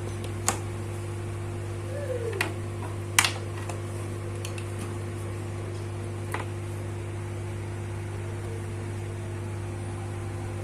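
Steady low hum under a few sharp clicks and taps from a phone and its micro-USB charging cable being handled and plugged in to test charging.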